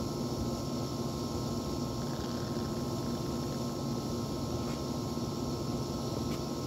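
Outdoor central air-conditioning condenser unit running with a steady hum.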